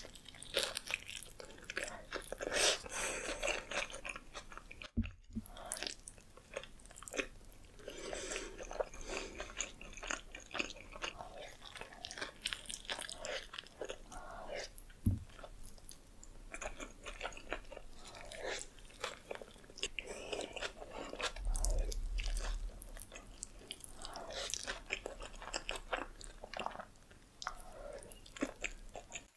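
Close-miked biting and chewing of a large grilled burrito, full of short, crisp mouth and food sounds. There is a brief break about five seconds in.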